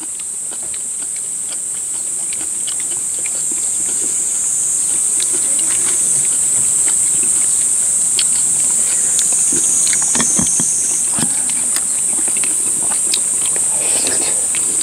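A loud, steady, high-pitched drone of summer insects that swells a little over the first few seconds. Scattered light clicks of chopsticks and spoons against metal bowls run over it.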